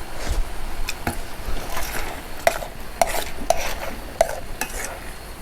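Vegetables being stir-fried in a pan, the spatula scraping and knocking against the pan. Light scrapes come early on, then sharp clinks about every half second from around halfway.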